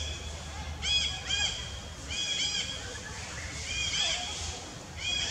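Short high-pitched animal calls, each rising and falling in pitch, coming in quick groups of two or three about once a second, over a low steady rumble that fades about halfway through.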